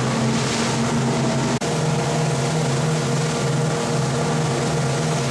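Motor boat's engines running steadily underway, a low drone with wind and water hiss over it. The sound drops out for an instant about a second and a half in, then carries on with a slight pulse in the drone.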